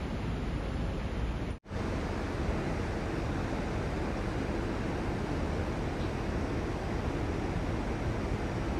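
Steady rushing noise with a split-second dropout about one and a half seconds in.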